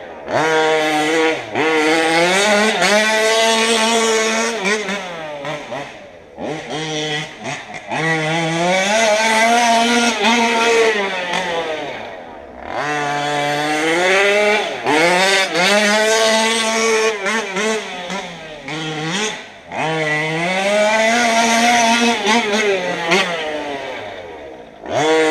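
A modified 38cc two-stroke engine in a gas-powered RC car, run hard in four long bursts of several seconds. Between bursts it drops back briefly, and its pitch rises and falls within each run.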